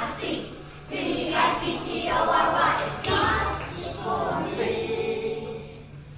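Children's choir singing a worship song together, with a long held note a little past the middle that fades near the end.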